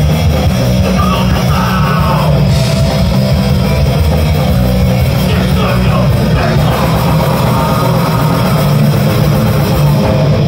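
Heavy rock band playing live and loud: electric guitars and drums with a vocalist singing over them.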